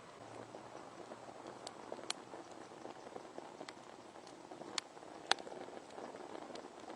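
Wood fire crackling, with irregular small pops and a few sharper snaps, the loudest a little past the middle.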